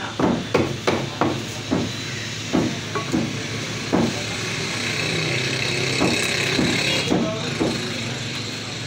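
Meat cleavers chopping goat meat on wooden butcher's blocks: a quick run of knocks in the first second or so, then scattered single chops. A steady hiss sounds in the middle.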